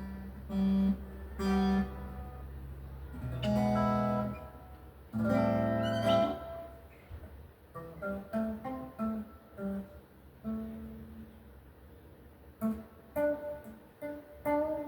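Acoustic guitar being played: a few single notes, two longer strummed chords about four and six seconds in, then a run of short plucked notes.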